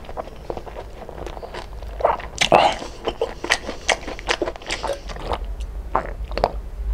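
Biting and chewing crispy lechon kawali (deep-fried pork belly): a run of sharp crunches, loudest about two and a half seconds in.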